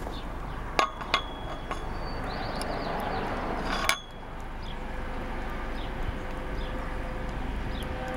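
Sharp metallic clinks of chain-link fence hardware on a galvanized steel post: two close together about a second in and a louder, ringing one just before the middle, over a steady background hiss.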